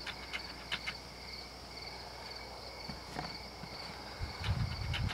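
Insects trilling steadily, one high pulsing trill over a lower steady one. In the last second come low thuds and rustle close to the microphone as a person walks past.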